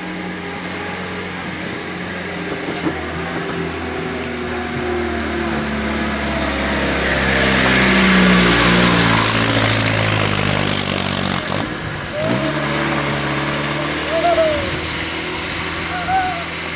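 Engine running steadily, with a broad swell of noise that builds to its loudest about halfway through and then fades back.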